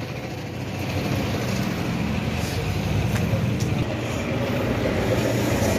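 An engine running steadily with a low rumble, and a few faint clicks over it.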